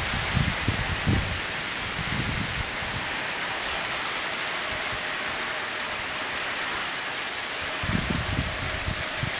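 Heavy rain pouring steadily, a dense even hiss of rain hitting a tiled roof and flooded ground. Irregular low rumbles come through in the first couple of seconds and again about eight seconds in.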